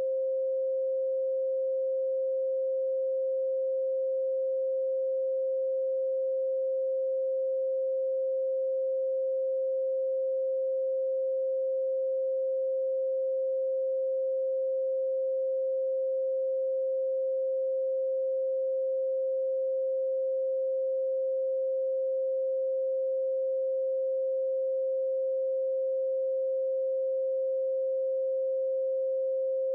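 A steady, unbroken pure sine tone at 528 Hz, the so-called healing frequency, with no other sound.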